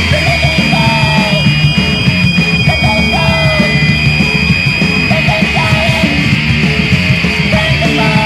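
Noise punk recording: a dense, distorted band sound with steady high-pitched tones held over it and a short wavering figure repeating in the middle range.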